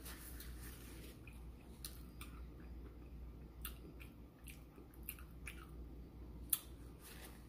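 A person chewing a mouthful of burger, with scattered small wet mouth clicks and smacks over a low steady hum. A sharper click comes near the end.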